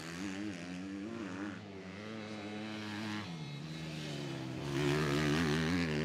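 Motocross bike engines revving up and down on the track, their pitch rising and falling repeatedly; the sound grows louder about three-quarters of the way in.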